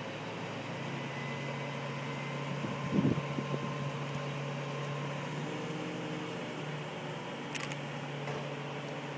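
Crane engine running at a steady low hum, with a short knock about three seconds in and a brief click later on.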